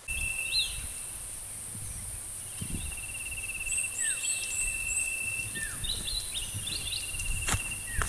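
Grassland ambience of insects and birds: a steady high-pitched insect buzz, a long rapid trill held at one pitch, and birds giving short repeated chirps and downward-slurred notes. A footstep lands about 7.5 seconds in.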